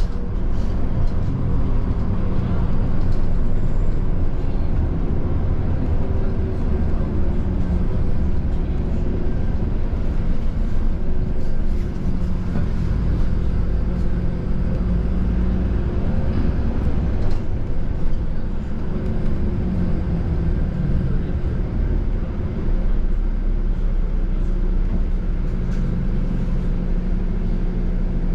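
City bus engine and road noise heard from inside the moving bus: a steady low drone whose engine note rises and falls a few times as the bus speeds up and slows.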